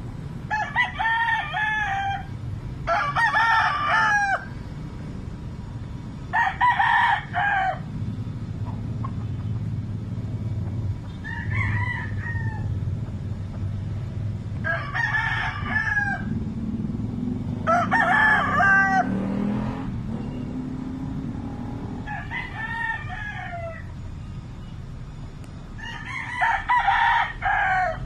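Roosters crowing: about eight crows, each lasting one to two seconds and coming a few seconds apart, one of them fainter than the rest, over a low steady rumble.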